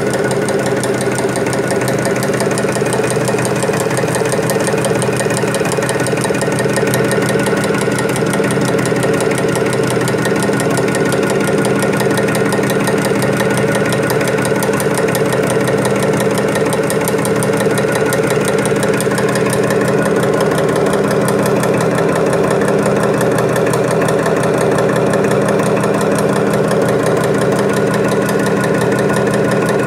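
Curb chain compacting machine running steadily: its belt-driven press works at a fast, even rhythm over a constant motor drone.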